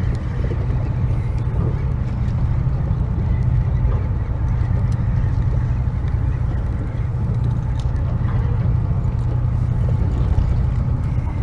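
Steady low drone of a charter boat's engine running while the boat sits on the fishing spot.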